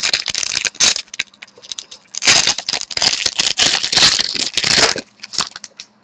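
Trading-card pack wrapper crinkling and tearing as it is handled and opened close to the microphone. One short burst of crackling in the first second, then a longer one from about two seconds in to about five.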